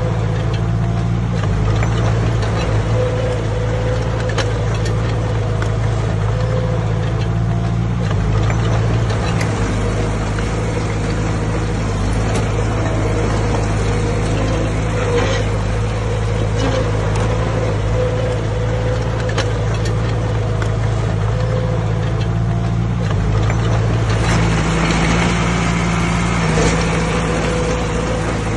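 Diesel engine of heavy earthmoving machinery running steadily under work, with scattered clicks and knocks over it. Its note shifts about three quarters of the way through.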